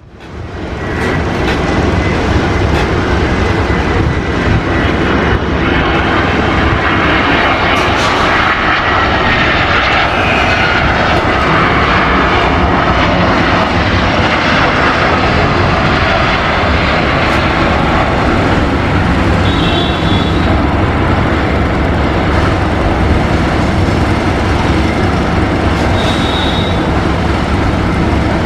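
Airbus A320-family jet airliner's engines running loud on the runway: a steady, even engine noise with a faint high whine that slowly falls in pitch over the first ten seconds or so. The sound fades in at the start.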